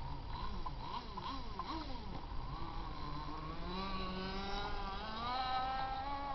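Two-stroke Zenoah gas engine of an RC jet boat running. Its pitch swoops down and up several times, then climbs and holds high from about halfway as it revs up, over a low rush of water.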